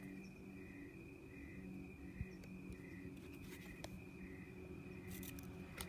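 Faint evening insect chorus: a steady high trill with a soft chirp repeating about every two-thirds of a second, over a low steady hum. A few light clicks come from a cardboard board book being handled, most near the end.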